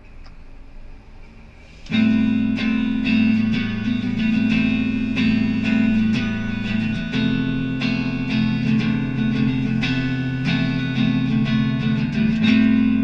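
Electric guitar improvisation over a looped part: after about two seconds of faint hiss, the guitar starts suddenly, with plucked notes over held low notes.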